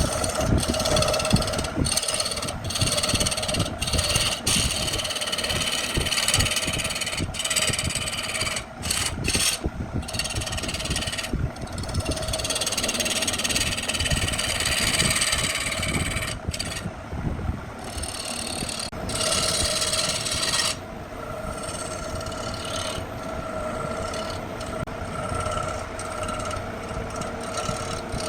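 Wood lathe running with a steady hum while a cutting or sanding tool scrapes against the spinning workpiece. The scraping changes abruptly several times.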